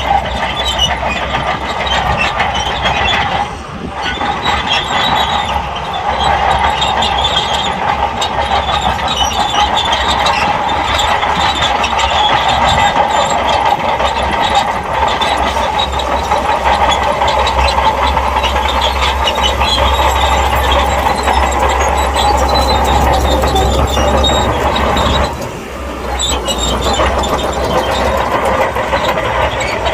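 A SHANTUI crawler bulldozer working in sand: its diesel engine runs with a steady low rumble under the clatter and squeal of its steel tracks. The sound eases briefly twice, a few seconds in and near the end.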